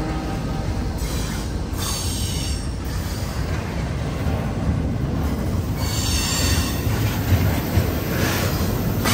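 CSX intermodal freight train rolling past with a steady rumble of wheels on rail. Short high-pitched wheel squeals come about two seconds in, around six seconds in and again near the end.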